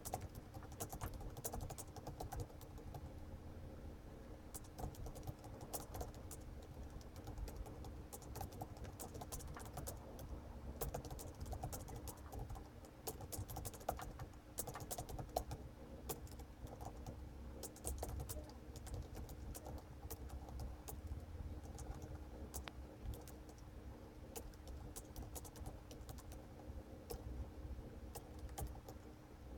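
Fast, irregular clicking of computer keyboard keys during steady touch-typing, over a low steady hum.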